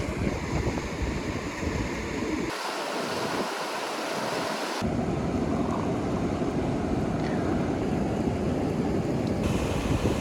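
Outdoor ambience of rushing river water with wind buffeting the microphone. The sound changes abruptly several times at edits, and the low wind rumble drops out for about two seconds near the middle.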